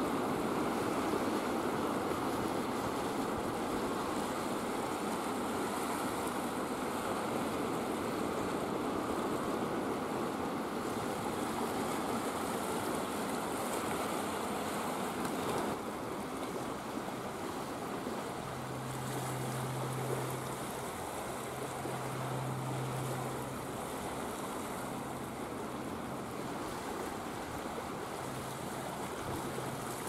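Steady rush of waves and rippling sea water, with some wind. From about halfway through, a low hum comes and goes in stretches of a second or two.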